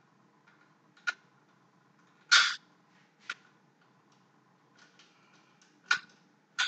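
Small metal hardware (bolt, washer, nut) clicking and knocking against PVC pipe as it is fitted by hand: five short, separate clicks, the one about two seconds in the loudest and a little drawn out.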